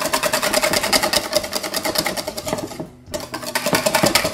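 Wire whisk beating rapidly against a stainless steel bowl, a quick even clatter with the bowl ringing, as egg yolks and oil are whisked by hand into mayonnaise. The strokes stop for a moment about three seconds in, then start again.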